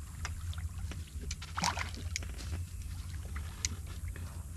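Wind rumbling steadily on the microphone, with scattered small clicks and a brief sharper noise about one and a half seconds in.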